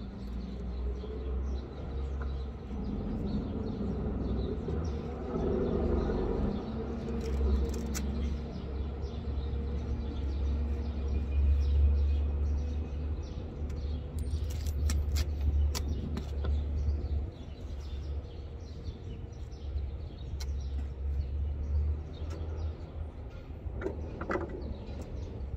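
Clothing rubbing and brushing over the camera's microphone: a low rumble that swells and fades, with rustling and a few sharp clicks.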